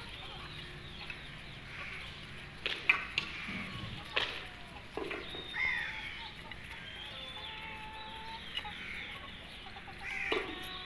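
Young chickens clucking and giving short calls that glide up and down in pitch as they peck at a feed dish, with a few sharp taps, the loudest about three seconds in.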